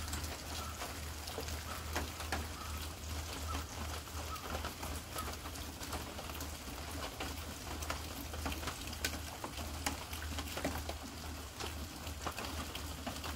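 Light rain: scattered raindrops pattering on fallen leaves and wet ground, each drop a separate small tick over a soft steady hiss.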